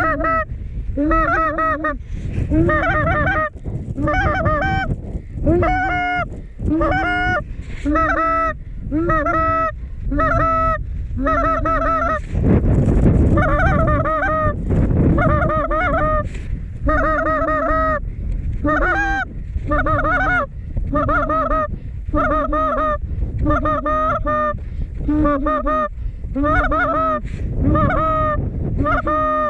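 Goose honking in a steady series, about one honk a second, over heavy wind buffeting the microphone that gusts louder about halfway through.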